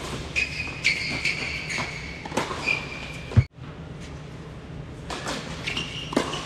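Tennis rally on an indoor hard court: sharp racket-on-ball hits and high sneaker squeaks on the court surface, with one loud hit a little past halfway after which the sound breaks off abruptly. Near the end there is another short run of hits and squeaks.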